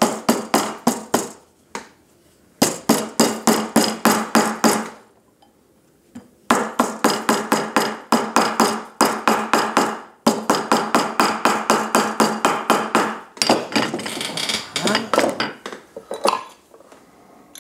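Mallet tapping a gold ring band around a steel ring mandrel to round it to finger size: quick runs of ringing metallic strikes, about five a second, broken by short pauses.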